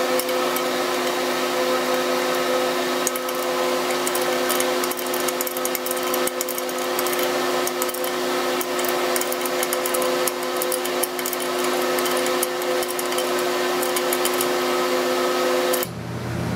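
A steady mechanical hum with several fixed tones, with many light clicks of a cut-down 12-point box-end wrench working the flare nuts on the trim-cylinder hydraulic lines. The hum cuts off suddenly near the end.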